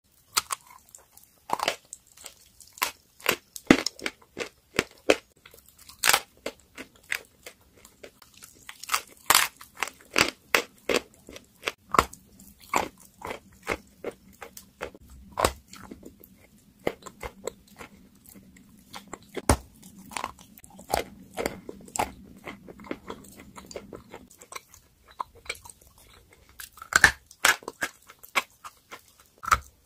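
Close-up bites and crunching chews of dry, brittle chalk chunks: an irregular run of sharp cracks and crunches, with louder snaps where a piece is bitten off.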